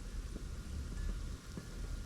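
Wind rumbling on a GoPro's microphone, with faint scattered ticks of snow landing on the camera.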